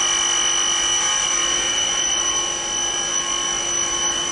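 Propane (LPG) dispenser pump running while a vehicle's gas tank is filled: a steady high-pitched whine of several held tones.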